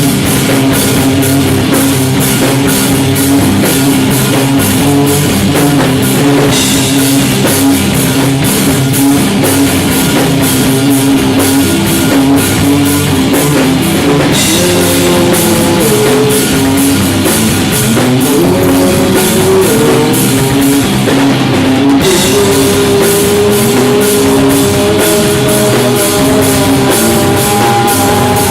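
A rock band playing live without vocals: drum kit with steady cymbal hits under distorted electric guitar lines.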